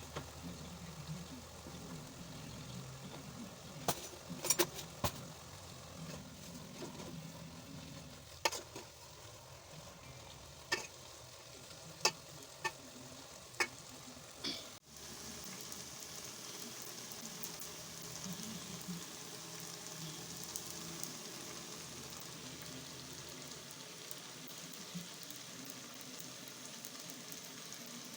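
Food sizzling as it fries in a pan while it is stirred, with several sharp clicks of a utensil against the pan. About halfway the sound changes abruptly to a steadier, higher sizzle.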